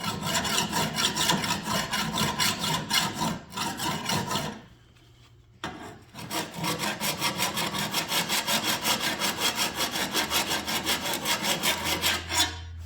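Hand file rasping along the bevel of a steel lawnmower blade in rapid back-and-forth strokes, taking the nicks out of the edge. The strokes stop for about a second partway through, then resume.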